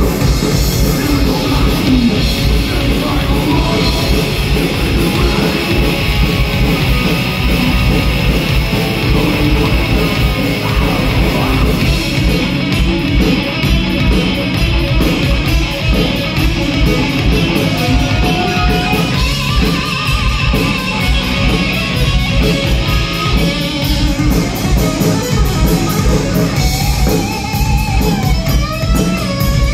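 Loud live heavy metal band playing distorted electric guitars, bass and drums, with a lead line of bending notes over the band in the second half.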